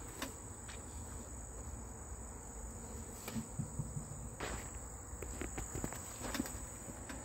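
Mother cat licking and cleaning her newborn kitten: soft, scattered rustles and small wet clicks against blanket and straw, a little louder about halfway through and near the end. A steady high-pitched drone runs underneath.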